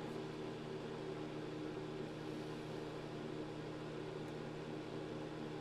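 Pelonis electric space heater running on its 1300-watt setting: the fan blowing steadily with a constant electrical hum.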